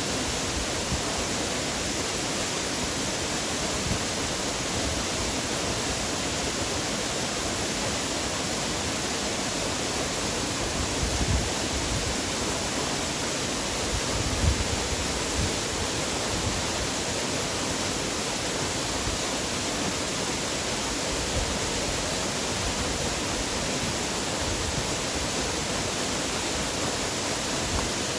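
Waterfall: a steady rush of falling water, with a couple of brief low bumps about halfway through.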